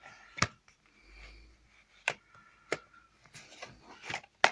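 Sharp clicks and taps of a plastic Blu-ray case and its cardboard slipcase being handled and turned over, about five or six in all, the loudest near the end.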